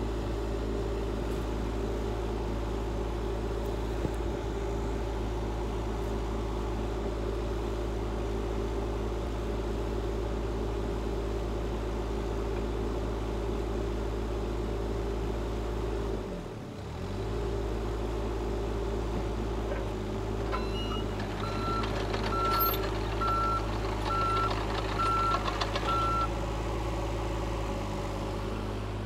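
Volvo EC35C compact excavator's diesel engine running steadily. About halfway through, its note briefly sags and recovers. Later a short run of about seven evenly spaced electronic warning beeps sounds from the machine.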